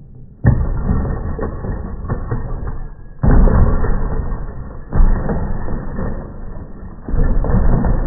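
Plastic Little Tikes Cozy Coupe ride-on toy car tumbling down wooden deck steps: four sudden heavy hits a second or two apart as it strikes the steps, with the clatter of the tumbling going on between them.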